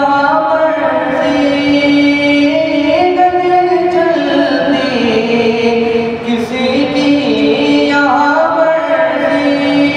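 A young man sings a naat (an Urdu devotional poem in praise of the Prophet) solo into a handheld microphone, with no instruments. He holds long, drawn-out notes and slides between pitches in an ornamented melody.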